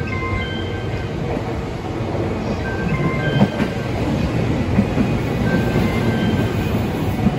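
A JR 285 series 'Sunrise Express' electric sleeper train running along the platform close by: a steady rumble of wheels on rail, with a few sharp knocks from the rail joints.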